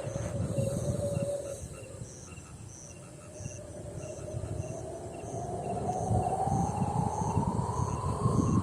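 Wind blowing and howling: a whistling tone sinks slightly, then slowly rises in pitch, over gusty low rumble that grows stronger toward the end. A faint high chirping repeats about twice a second throughout.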